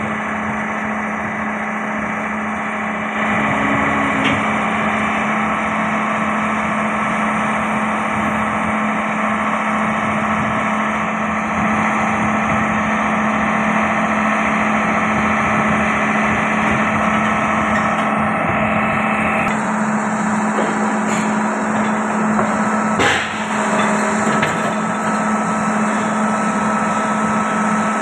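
Excavator diesel engine running steadily with a constant low hum, getting a little louder about three seconds in. A single short knock sounds late on.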